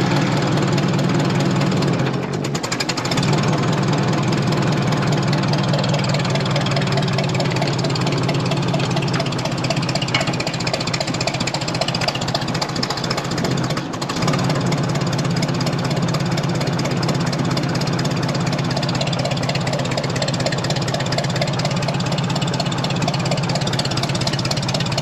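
1957 Ford Powermaster 841 tractor's four-cylinder gasoline engine idling steadily just after starting, running on a little choke. The engine note dips briefly about two seconds in and again about halfway through.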